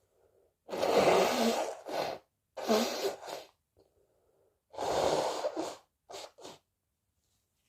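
A person sneezing three times in quick succession, each a loud, sudden burst, then two short sniffs.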